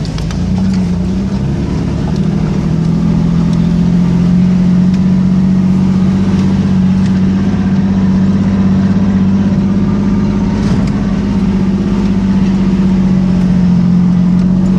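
1992 Chevrolet Silverado 1500 pickup's engine running steadily in first gear while driving through a muddy farm track, its pitch stepping up slightly in the first couple of seconds and then holding even.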